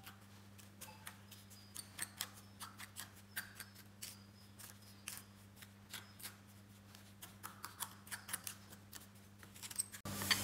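Metal spatula mixing moist soil and distilled water into a paste in a bowl: faint, irregular scrapes and clicks several times a second as the blade drags and taps against the bowl, over a steady low hum.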